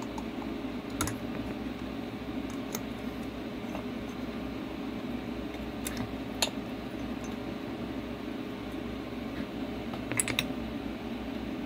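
Scattered small clicks and taps of metal carburetor parts (float bowl and carburetor body) being handled and fitted together, with a cluster of clicks near the end, over a steady room hum.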